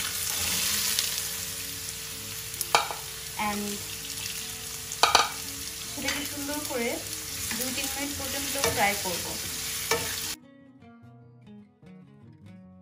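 Cubed raw potatoes dropped into hot oil in a frying pan, sizzling loudly as they start to fry, with a few sharp knocks along the way. The sizzle cuts off abruptly about ten seconds in, and faint background music follows.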